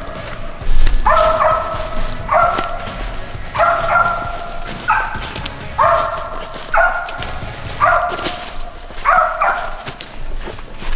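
A squirrel dog barking treed, the steady bark that tells the hunters game is up the tree. It gives about eight barks, one roughly every second and a quarter, many of them doubled into quick pairs.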